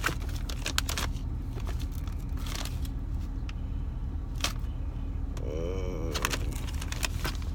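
Plastic packaging of soft-plastic fishing baits crinkling and clicking as the packs are rummaged through, over a steady low hum.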